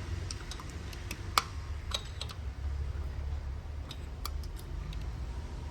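Scattered light metal clicks of a pick tool working at a snap ring in a transmission clutch drum, the sharpest about one and a half seconds in, over a steady low hum.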